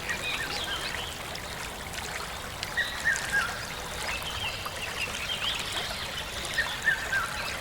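Wild birds chirping, with short whistled phrases repeating every second or so, over a steady background hiss of outdoor ambience.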